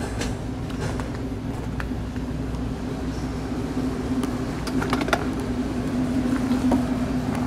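A steady engine hum with a low rumble, growing a little louder past the middle, with a few light clicks.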